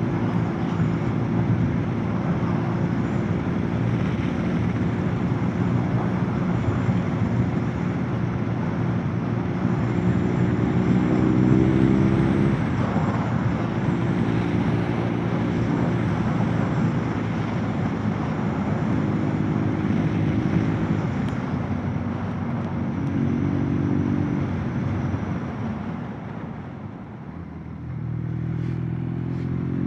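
Motorcycle engine running on the move, with wind and road noise, its pitch shifting through the ride. It eases off about 27 seconds in, then its pitch rises as it accelerates again near the end.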